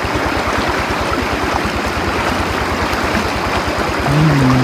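Stream water running steadily. About four seconds in, a low held pitched tone comes in over it and is louder than the water.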